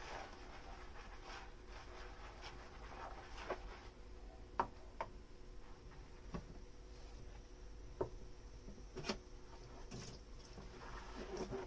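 Dishes and kitchenware being handled during washing-up: a handful of light, sharp clinks and taps, spaced irregularly, over a faint background.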